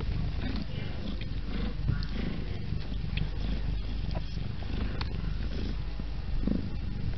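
Sphynx mother cat purring as a low, continuous rumble that swells and eases, with a few faint clicks.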